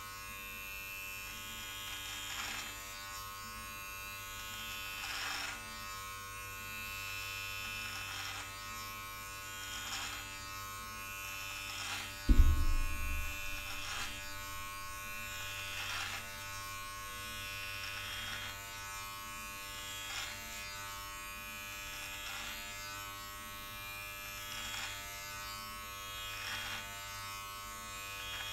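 Manscaped electric body-hair trimmer buzzing steadily as it is drawn down through beard hair in repeated strokes, every second or two. A loud low thump comes about twelve seconds in.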